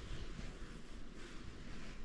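Wind rumbling unevenly on the microphone over a steady broad hiss.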